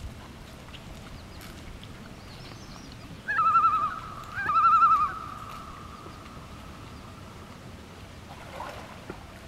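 Common loon giving its wavering tremolo call: two bursts of rapidly quavering notes a little over three seconds in, the second running into a long note that slowly fades away.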